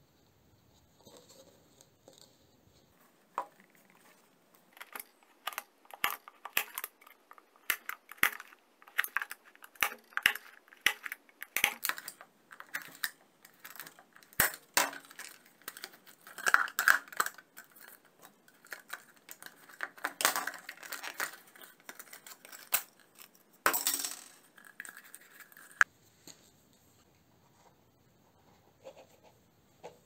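Hard plastic parts of a shower head clicking and rattling as they are pried apart by hand, in irregular clusters of sharp clicks, with a louder crackling snap about three-quarters of the way through.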